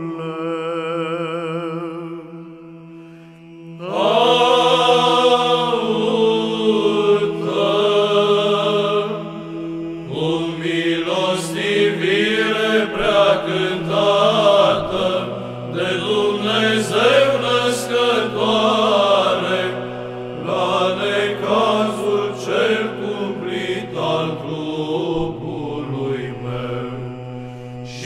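Orthodox Byzantine chant: a sung melody winding in long melismas over a steady held drone note (the ison). The singing sinks to a soft held note for the first few seconds, then the melody comes back loud about four seconds in and carries on.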